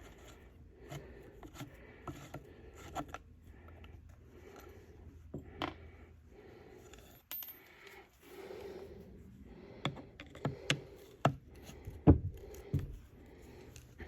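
Scattered light clicks, taps and scrapes of a screwdriver and small metal screws being worked on a Rockwell grinder's housing during disassembly, with a run of sharper clicks near the end.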